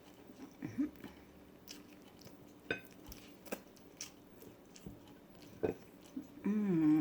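Close-up eating sounds: chewing, with wet mouth clicks and smacks and a few sharp taps. Near the end, a low hummed 'mmm'.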